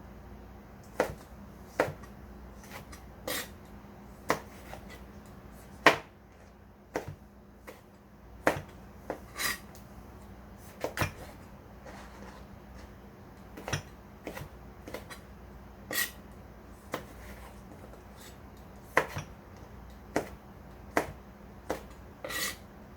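Irregular knocks and clinks of kitchen utensils and cookware, roughly one every second or two, some with a brief ringing tail, over a low steady hum.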